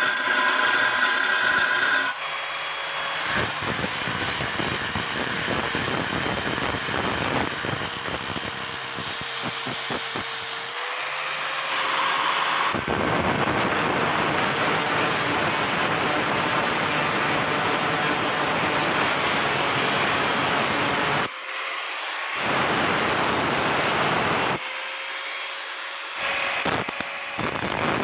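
A wire brush spinning on a power tool scrubs rust from the steel saw teeth, then an angle grinder's abrasive disc grinds the saw blade, a steady motor whine over a harsh grinding hiss. The sound cuts abruptly between several takes.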